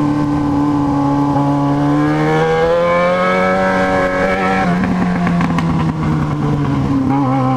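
Yamaha XJ6's inline-four engine running on the move, its pitch rising gently for a couple of seconds and then dropping about halfway through as the throttle is eased, before holding steady.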